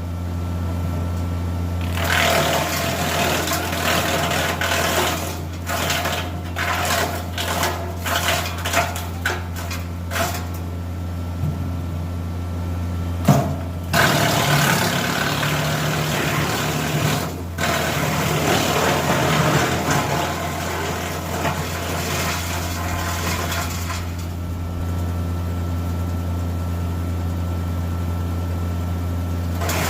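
Tractor-driven Titan wood chipper running with a steady engine hum. From about two seconds in until near the end, brush is fed in and chewed up in loud bursts of grinding and cracking, with rapid snapping around the middle. In the last few seconds only the engine and spinning chipper are heard.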